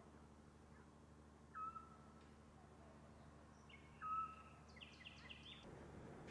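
An owl's short whistled hoot, heard twice about two and a half seconds apart, with a quick run of higher bird chirps about five seconds in, over a faint low steady hum.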